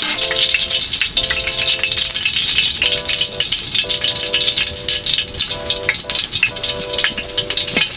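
Chopped garlic sizzling in hot cooking oil in a stainless steel wok, a steady hiss with many small pops. Background music with short held chords plays over it.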